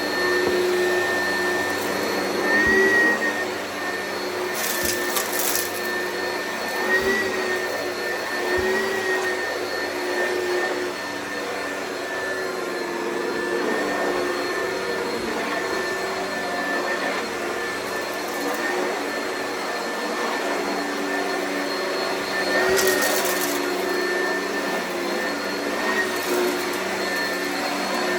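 Oreck upright vacuum cleaner running steadily, its motor whine wavering slightly in pitch as it is pushed over the floor. There are brief crunchy crackles about five seconds in and again around 23 seconds, as debris is sucked up.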